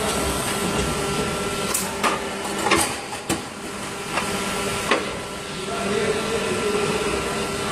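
Plastic injection moulding machine cycling a 6-cavity PET preform mold: a steady machine hum, with several sharp clacks between about two and five seconds in as the mold opens and the preforms are ejected.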